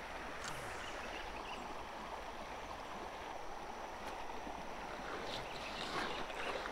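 Steady rush of a clear river flowing over a shallow gravel bed.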